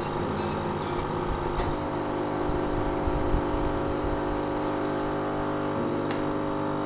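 Hot air rework gun blowing steadily onto a phone circuit board: a constant whirring drone with a held hum.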